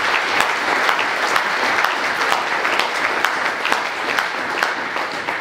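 Audience applause: many people clapping steadily in a dense patter, easing slightly near the end.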